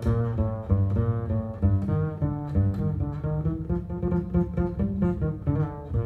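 Recorded music: a solo double bass playing an instrumental passage, a quick run of separate low notes with no singing.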